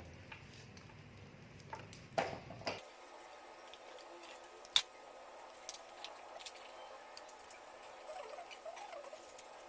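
Faint scattered clicks and light rustling of hands handling the twisted-pair wires of a network cable, with one sharper click about five seconds in.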